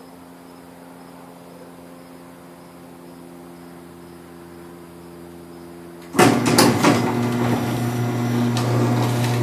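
Garage door opener triggered by a relay: a faint steady hum, then about six seconds in a sudden clatter of clicks and knocks as the opener's motor starts and the door begins closing, running on as a loud steady motor hum with rattling.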